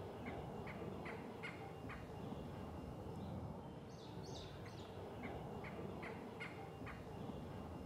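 A bird calling outdoors: a phrase of about five short, sharp notes, repeated about four seconds later, over a steady low background rumble.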